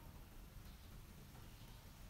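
Near silence: faint low room tone.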